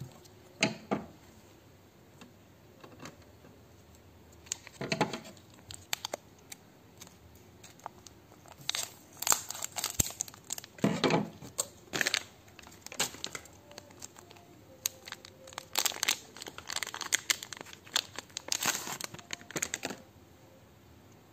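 Clear plastic shrink wrap on an Epson 003 ink bottle being snipped with scissors, then crinkled and torn off, in short irregular bursts that come thickest in the second half.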